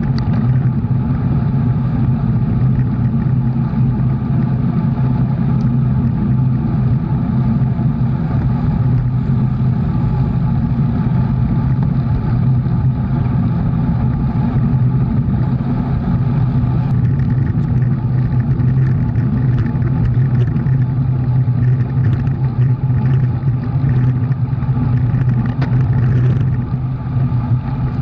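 A motor vehicle's engine running steadily at an even speed: a constant low drone with a steady hiss above it.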